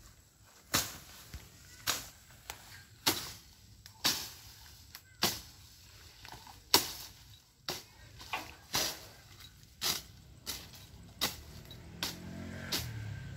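A hand-swung blade slashing through thick grass and weeds, a sharp swish-and-cut about once a second in a steady rhythm. A low rumble comes in near the end.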